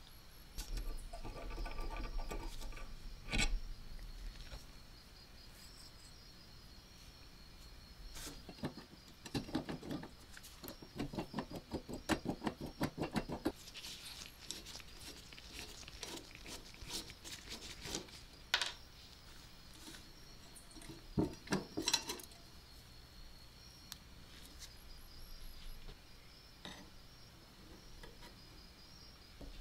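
Screwdriver backing screws out of a cast iron mechanical coin bank: a run of quick, grating ticks as a screw turns, short scraping stretches, and scattered clinks and knocks of small metal parts handled and set down on a wooden bench.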